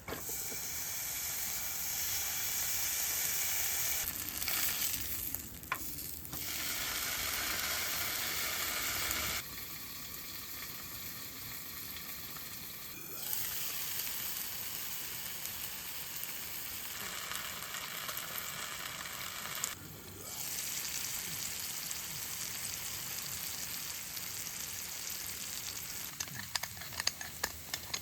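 Food frying and sizzling in a pan over a campfire, a steady hiss that jumps in level at several abrupt cuts, with a few sharp ticks near the end.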